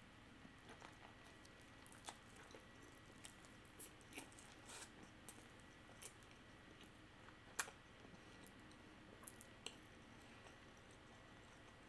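Faint, scattered wet clicks and squishes of a mouth chewing a large bite of seaweed-wrapped salmon sushi roll, with one louder click about halfway through. The rice is sticky and very hard to chew.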